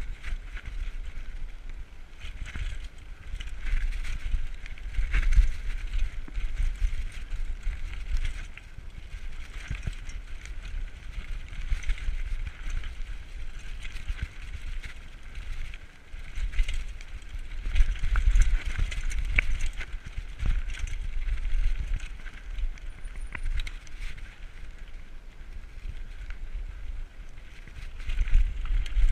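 Diamondback Recoil 29er mountain bike ridden fast over a rocky dirt trail: tyres crunching on gravel and stones, the bike rattling and clicking over bumps, and wind buffeting the microphone in a low rumble. The rattling grows louder over rougher stretches about five seconds in, past halfway, and near the end.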